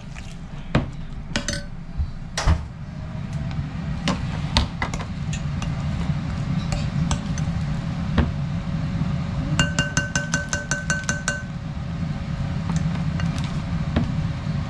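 A utensil clinking and scraping against a glass mixing bowl as chunky vegetable batter is stirred, in scattered sharp clicks over a steady low hum. About ten seconds in, a quick even run of about a dozen ticks with a ringing tone lasts under two seconds.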